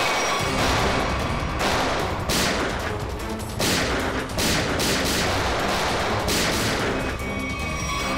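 Gunfire: a sustained exchange of many shots in quick succession, thickening into heavier volleys several times.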